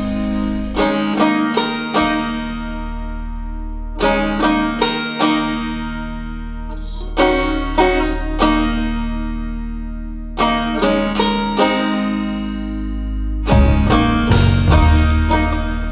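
Background instrumental music: phrases of plucked string notes that ring out between them over a steady low bass, with fuller, denser playing coming in near the end.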